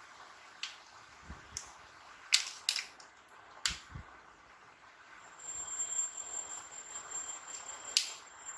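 Several sharp separate clicks and taps of colouring supplies being put down and picked up on a tabletop, the loudest about two and a half seconds in. From about five seconds in a faint steady hiss with a thin high whine runs under them.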